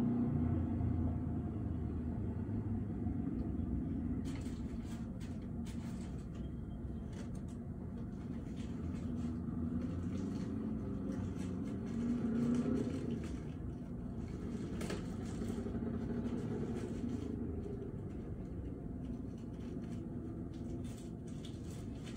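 Steady low rumble of city traffic, with one vehicle swelling up and falling away about halfway through and a few faint clicks.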